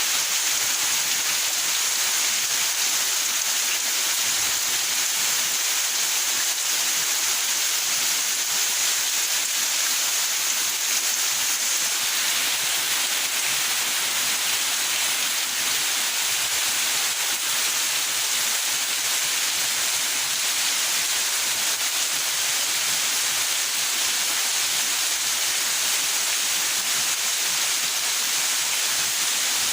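Steady rain falling, an even hiss of heavy rainfall with no breaks or single drops standing out.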